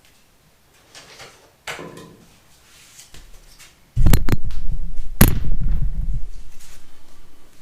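Two loud, sharp knocks about a second apart, followed by a low rumble that fades over about three seconds.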